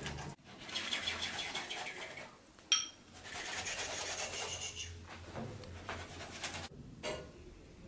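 Pastry brush rubbing over hot, freshly baked gingerbread panels, spreading an egg-white glaze that sets on the warm biscuit. The brushing comes in two stretches of soft scratchy strokes, with a single sharp click between them about two and a half seconds in.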